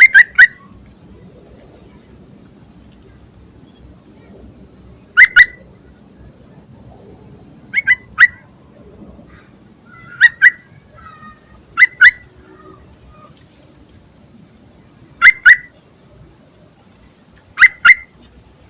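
Yellow-vented bulbul (trucukan) calling: seven sharp double-note calls, repeated every two to three seconds. This is the call the recording labels as a female calling for a male, used to lure birds.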